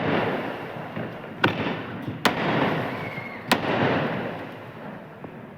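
Sky shot aerial fireworks going off: three sharp bangs about one and a half, two and a quarter and three and a half seconds in, each trailing off into a rumble.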